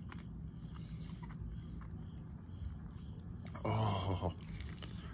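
Sour popping candy crackling and being chewed in the mouth: faint scattered clicks and mouth sounds over a steady low hum, with a brief voiced groan about three and a half seconds in.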